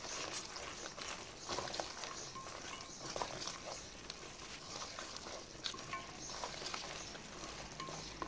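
Wooden spatula stirring fried soya chunks through a simmering chilli sauce in a nonstick kadai: a continuous wet stirring with a light sizzle and irregular scrapes and taps against the pan.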